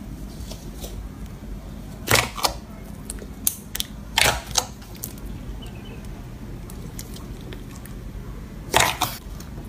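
Clear slime being stretched and pressed by hand, giving short bursts of sharp pops and crackles: a cluster about two seconds in, a few more around four seconds, and another near the end.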